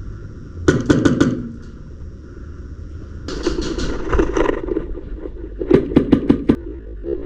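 Airsoft guns firing: a quick burst of shots about a second in, a longer rapid burst around the middle, then a string of separate shots near the end.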